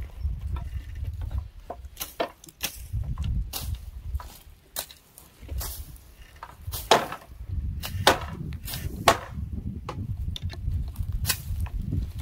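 Dry branches being hacked by hand with a blade for firewood: a dozen or so sharp, irregular chops, roughly one every second, over a low rumble.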